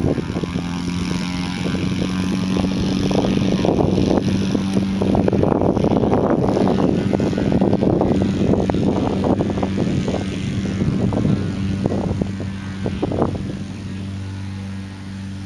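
An engine drones steadily at an unchanging pitch, under heavy irregular rumbling and buffeting that is loudest mid-way and eases near the end.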